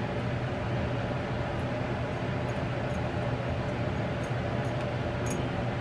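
A steady low hum, with a few faint light ticks from a silicone spatula scraping barbecue sauce off a rack of ribs.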